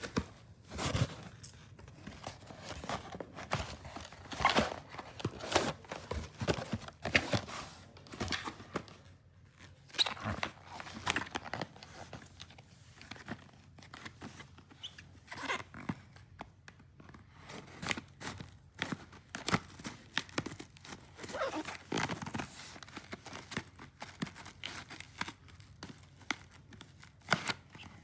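Packaging being handled and opened: crinkling and tearing with irregular clicks and rustles.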